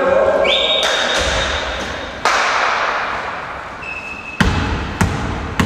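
A volleyball thudding in a large echoing gym hall: one hit about two seconds in, then three quick bounces on the floor about half a second apart near the end, each ringing on in the hall. Short high squeaks come in between.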